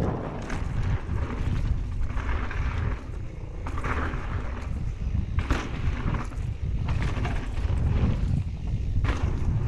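Mountain bike riding fast down a dirt trail: wind buffeting the microphone and tyres rumbling over the dirt, with several sharp rattles and knocks from the bike over bumps.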